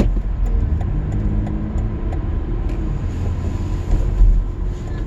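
Car driving, heard from inside the cabin: steady low road and engine rumble with a few faint clicks.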